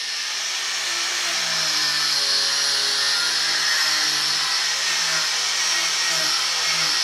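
Power grinder running steadily under load, grinding out a temporary repair on a cracked bulkhead.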